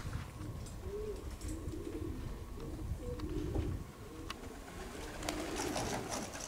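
Racing pigeons cooing over and over, short rising-and-falling coos, with a low rumble underneath.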